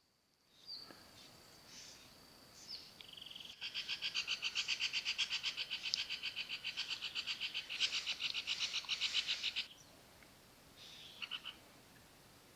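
An animal's rapid pulsed call, about five pulses a second for some six seconds, high in pitch. A few short single calls come before and after it.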